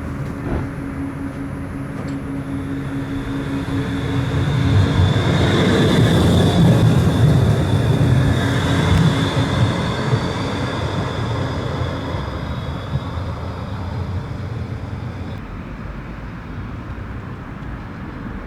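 Tram running along the track: wheel and running noise swells to its loudest about six to eight seconds in, then eases off. A steady high whine runs through most of it and stops a few seconds before the end.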